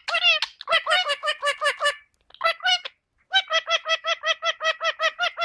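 Indian ringneck parakeet calling in rapid runs of short repeated notes, about seven a second, in two bursts with a pause of about a second between them.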